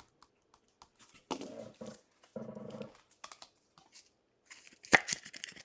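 Trading cards and pack wrappers being handled: light clicks, two short vocal sounds about a second and two and a half seconds in, and a loud sharp crinkle near the end.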